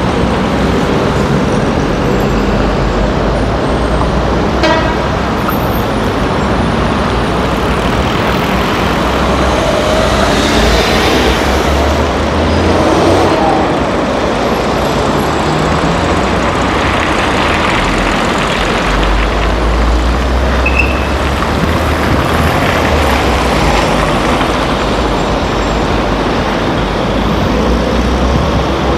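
City street traffic: cars and trucks driving past with a continuous engine and tyre rumble that swells as each vehicle goes by.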